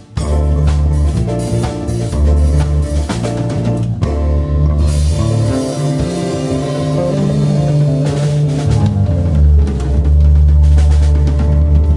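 A rock band plays a fast, hard-driving instrumental with drum kit, guitar and bass. It stops for a split second just at the start, eases into a lighter passage partway through, then comes back in heavy near the end.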